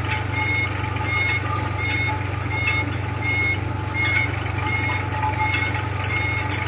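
A small road roller's diesel engine idling with a steady low hum, while a reversing alarm gives short high beeps about once every 0.7 seconds.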